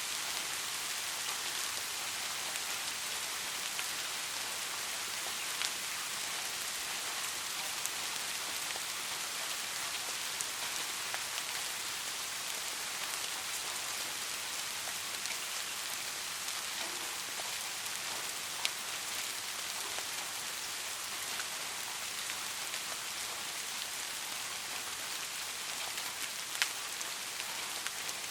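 Steady rainfall: an even hiss of rain with scattered individual drops ticking, and a few sharper drop hits.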